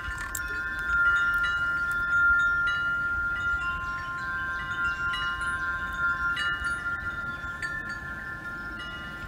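Wind chimes ringing: several long, overlapping tones with light tinkling strikes, swelling about a second in and again about two seconds in.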